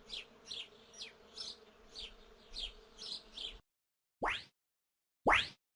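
Cartoon game sound effects: a run of short, high, falling chirps, about two to three a second, that stops a little past halfway. Then come two quick rising whistle-like sweeps about a second apart.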